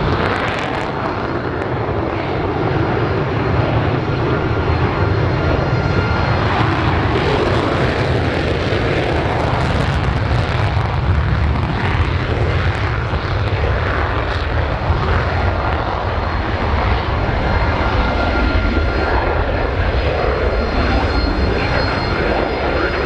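Twin General Electric F404 turbofans of a pair of F/A-18C Hornets making loud, continuous jet noise with a deep rumble. About a third of the way in it grows harsher as the engines run up to full afterburner for takeoff. A thin steady whine from AV-8B Harriers starting up runs underneath.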